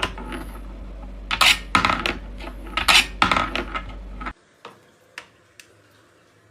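Hard objects clattering and clinking, several sharp strikes over a low hum. It cuts off abruptly about four seconds in, leaving a few faint clicks.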